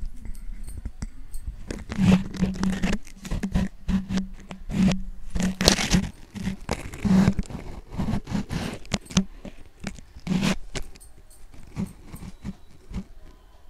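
Wet grated bottle gourd and gram flour mixture being squeezed and pressed by hand in a stainless steel bowl, with hand and mixture scraping and knocking against the bowl. Irregular scraping and handling strokes, busiest through the middle and lighter near the end.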